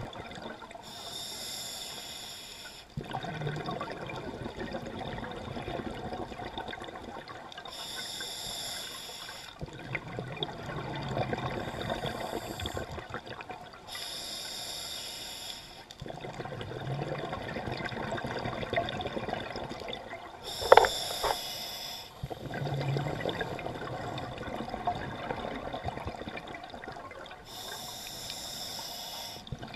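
Scuba diver breathing through a regulator underwater: a short hiss on each inhale about every six seconds, followed by a longer stretch of bubbling exhale. About two-thirds of the way through there is one sudden loud sound that falls in pitch.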